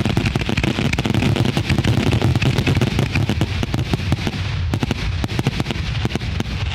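Consumer fireworks finale: a dense barrage of rapid-fire bangs and salute reports, thinning out and spacing apart about two-thirds of the way through.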